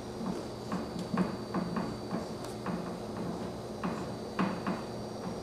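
Dry-erase marker writing on a whiteboard: a string of short, irregular strokes and taps as letters are drawn.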